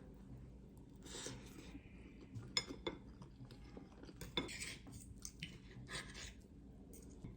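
Dishes and cutlery being handled: scattered light clinks and short scraping sounds.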